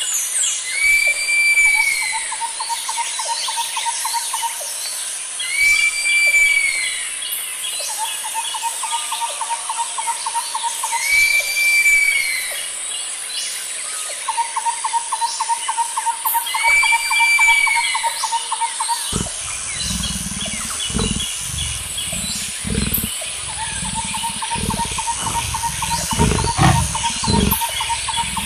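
A forest ambience of bird calls, the same sequence repeating about every five and a half seconds: an arched whistle, a fast pulsed trill and rapid ticking. About two-thirds of the way in, irregular low rumbling bursts join beneath the calls.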